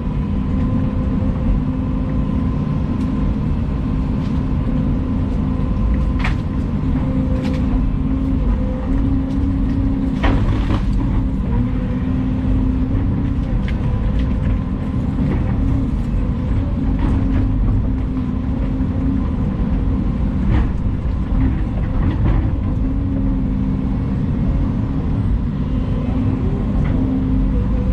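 Volvo EC220 excavator's diesel engine running steadily under work, with a few short knocks scattered through.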